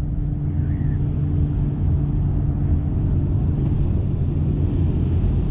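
Wind rumbling on a small action-camera microphone: a steady low rumble with no breaks.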